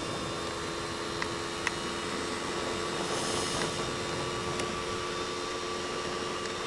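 Steady hiss with a faint, even hum under it and a couple of faint ticks.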